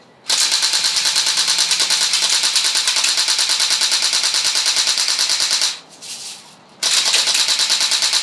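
D93 Uzi electric AEG airsoft gun firing on full auto: its motor and gearbox cycle in a fast, even rattle. One burst lasts about five seconds, and a second starts about a second after it stops.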